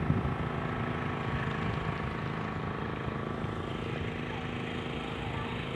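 An engine running steadily, a continuous drone with a constant hum.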